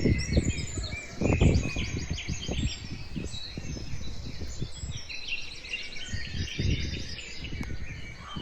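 Many small birds chirping and twittering at once in a dense, continuous chorus. Under it come irregular low rumbling thuds, the loudest near the start and again about a second and a half in.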